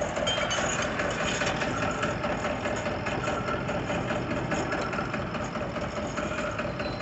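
The engine of a borewell pipe-lifting rig running steadily at idle.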